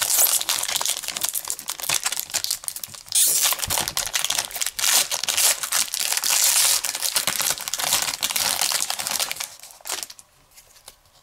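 A 2019 Panini Unparalleled trading-card pack wrapper being torn open, crinkling and crackling. It stops about ten seconds in.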